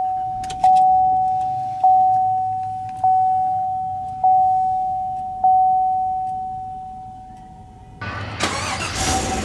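A truck's dashboard warning chime, a single pure ding that fades out, repeating about every 1.2 seconds, five times. About eight seconds in, the 2014 Chevrolet Silverado's 5.3-litre V8 starts and runs, heard at the exhaust tailpipe.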